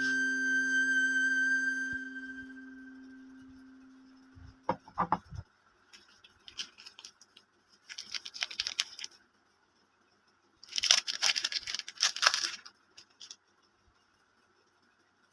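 A held musical note fades out, then soap packaging is torn and crinkled open in several crackling bursts, the loudest about eleven to twelve seconds in.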